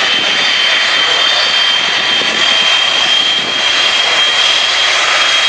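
Boeing E-3D Sentry's four CFM56 turbofan engines as the aircraft passes low along the runway: a loud, steady rush of jet noise with a thin high-pitched whine held over it.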